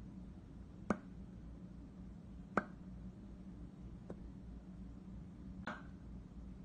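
Four short, sharp clicks about a second and a half apart, the first two loudest, as a hand presses round shapes into a flat disc of Play-Doh on a wooden tabletop, over a steady low hum.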